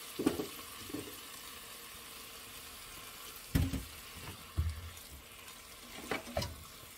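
Pork pieces sizzling in sesame oil in a hot pot, a steady hiss. Over it come a few knocks and scrapes as a silicone spatula stirs the meat, the loudest about three and a half seconds in.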